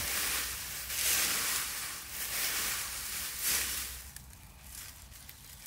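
Dry leaf litter rustling and crackling as a person shifts about in a bed of leaves, in several swells, dropping to quieter scattered crackles after about four seconds.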